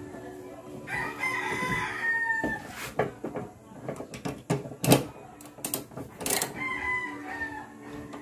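A rooster crows about a second in, one long call that drops at the end, and crows again more faintly near the end. Sharp knocks and clicks from work on the engine fall between the crows; the loudest comes about five seconds in.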